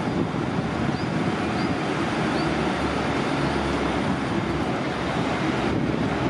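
Train running past at close range, a steady, heavy noise with no pauses.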